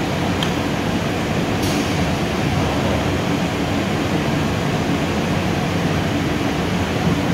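HOMAG Optimat BOF 311 CNC machining center running with a steady, loud mechanical drone. A brief tick and a short hiss come in the first two seconds.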